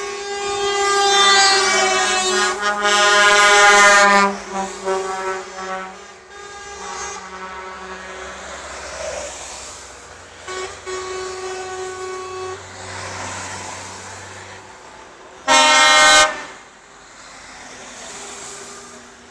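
Truck air horns sounding: a long, loud blast held for about four seconds, then quieter horn tones and truck noise, and a second short, loud blast about fifteen seconds in.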